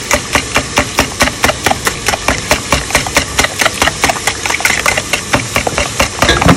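Metal wire whisk beating a thick gram-flour and yogurt batter in a bowl, clicking against the bowl's side about five times a second over a wet swishing. It is being beaten hard to break up lumps in the batter.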